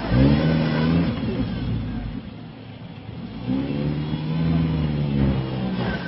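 Jeep Comanche pickup's engine revving hard under load as it climbs a slick, muddy rock ledge: a burst of throttle at the start, a brief easing off, then a second long pull on the throttle that holds until near the end.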